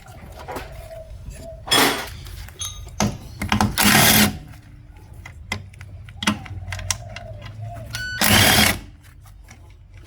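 Impact wrench hammering in several short bursts as it undoes the lower control arm bolt on a car's front suspension.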